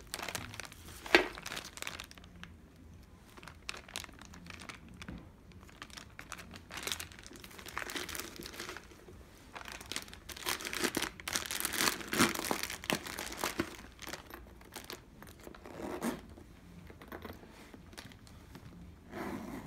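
Clear plastic packing wrap crinkling in irregular bursts as it is pulled out of a handbag and crumpled by hand, with one sharp click about a second in.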